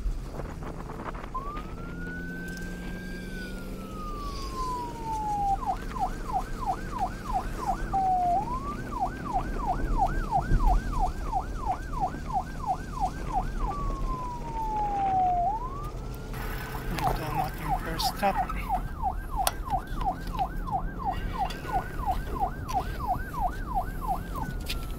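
Police-style electronic siren switching between a slow wail that rises and falls and a fast yelp of about three sweeps a second, over a low rumble of wind on the microphone.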